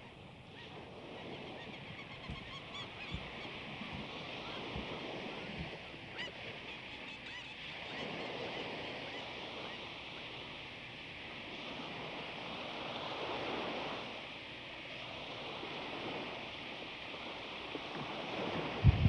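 Shoreline ambience: waves washing in, with birds calling and honking.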